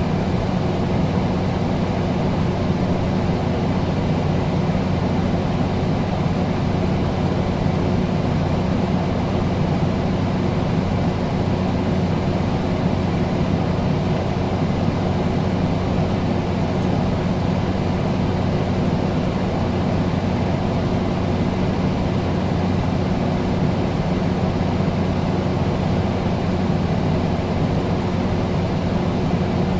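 Air conditioner running steadily: a constant rush of air with a low hum under it.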